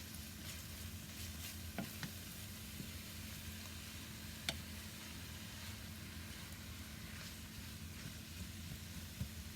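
Saltfish, onions and peppers sizzling steadily in oil in a pan over low-medium heat, with a few sharp clicks of a utensil against the pan as it is stirred.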